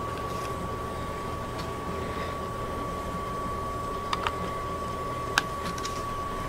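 Light clicks and taps of bare wire leads and connectors being handled, two close together a little past the middle and a sharper one soon after. Under them runs a steady hum with a thin, constant high whine.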